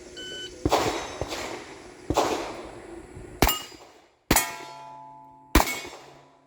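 Shot timer beep, then a string of about five .38 Special shots from a Smith & Wesson 686-5 Power Port revolver, roughly one every second, with steel target plates ringing after the hits.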